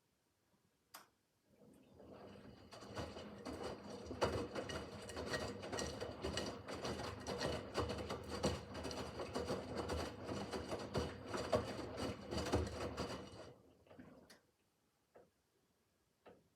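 Miele W5801 front-loading washing machine's drum turning for about twelve seconds during the wash, with laundry and water tumbling and sloshing and many small clicks, then stopping. A few soft clicks follow.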